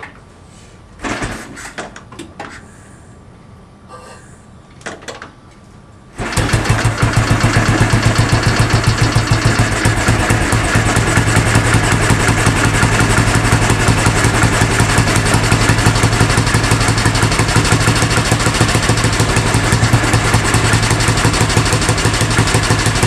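A few short clatters as the kickstarter of a cold 2001 Royal Enfield Bullet 500 is kicked over. About six seconds in, its single-cylinder engine catches and runs steadily, with the choke full on, through the louder factory muffler.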